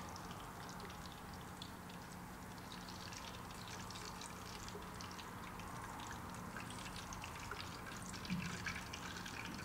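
Hot deep-frying oil sizzling faintly with many fine crackles as stuffed tofu pieces are lifted out of it on a wire strainer, over a steady low hum.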